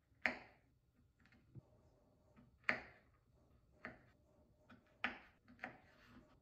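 Kitchen knife cutting through a soft oatmeal creme pie and tapping down onto a wooden cutting board: about five sharp little taps at uneven intervals, the loudest near the start.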